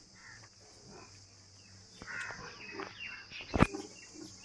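Rural yard ambience: a steady high buzz of insects with scattered short bird chirps, and one sharp knock about three and a half seconds in.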